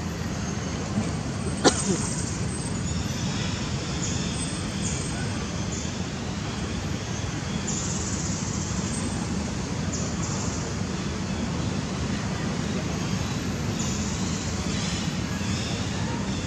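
Steady outdoor background noise, a low rumble with hiss, broken by a single sharp click nearly two seconds in.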